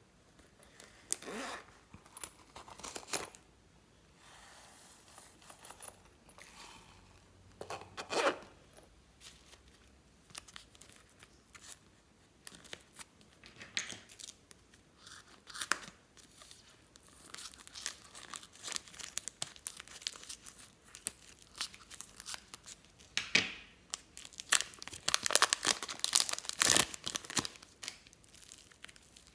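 Slime being worked by hand, pulled and squeezed, with sticky crackling and tearing sounds in irregular bursts that get busier and louder toward the end.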